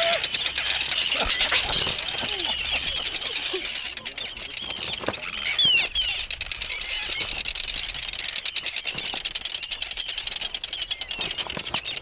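A crowd of terns calling over and over, short rising and falling calls overlapping, as they dive-bomb people near their nests: the alarm calls of birds defending their colony. The loudest calls come about six seconds in.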